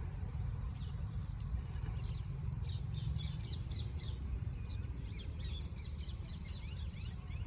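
Birds chirping and calling, many short high notes throughout, over a steady low rumble.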